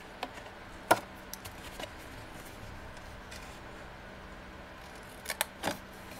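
Small craft scissors snipping white cardstock to cut slits up to the score lines and miter the corners: a few short, crisp snips about a second in, then two or three more near the end.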